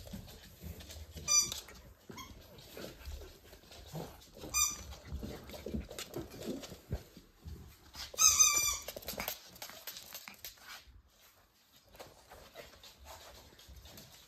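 Pembroke Welsh Corgi puppies yelping: two short high-pitched yelps, about a second in and near five seconds, then a longer, louder one about eight seconds in. Soft scuffling of play on the floor comes between the yelps.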